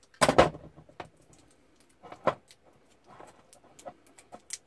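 Handling noises on a wooden workbench: a metal utility knife clatters down about a quarter of a second in, a knock follows about two seconds in, then small clicks and taps as a plastic-wrapped lithium-ion battery pack is turned over in the hands.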